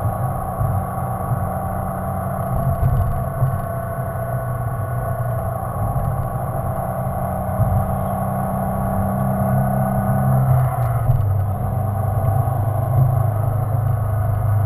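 Subaru STI's turbocharged flat-four engine running steadily while cruising, heard from inside the cabin with road noise; the engine note shifts about ten seconds in.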